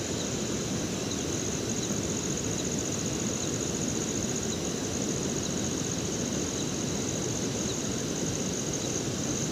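Steady rain with a continuous high-pitched insect trill over it.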